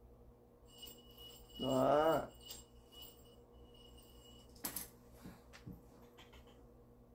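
A short vocal call with a wavering pitch about two seconds in, amid faint on-and-off bell-like jingling, then a sharp click near the middle and a few softer clicks.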